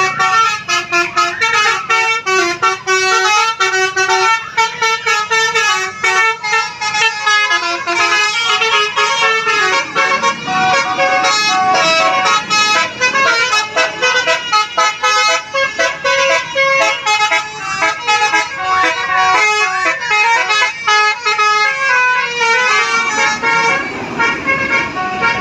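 Basuri-type telolet musical air horn playing a melody of quick, stepped horn notes without a break, several tones sounding at once at times.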